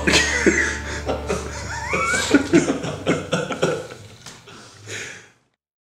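Two men laughing in irregular bursts, dying away and cutting off near the end.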